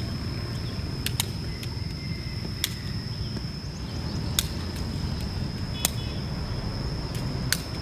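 A shuttlecock kicked back and forth between two players, each kick a sharp tap about every one and a half seconds, once as a quick double tap. Beneath it run a steady high-pitched tone and a constant low rumble.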